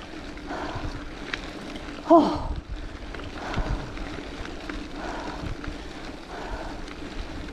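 Heavy, rhythmic breathing of a cyclist labouring up a steep 6–7% climb, about one breath a second, with a short falling groan about two seconds in. Wind rumbles on the microphone underneath.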